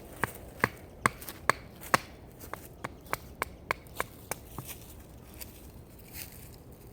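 A series of sharp knocks, about two a second, loud for the first two seconds and then fainter, dying out about four and a half seconds in.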